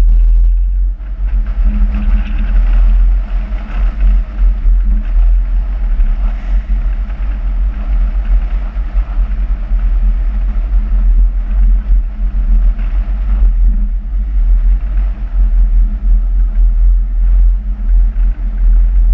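A Smart car driving along, its engine and tyre noise buried under heavy wind buffeting on an outside-mounted camera's microphone: a loud, gusting low rumble over a steady hum.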